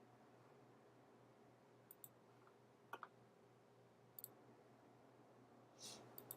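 Faint computer mouse clicks, three quick pairs about a second apart, over near silence.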